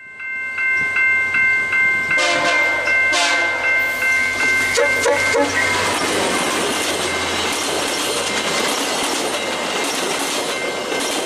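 A VIA Rail passenger train passing close at speed: a rushing roar with the clatter of wheels over the rail, loud from about two seconds in. Steady high ringing tones sound over it throughout.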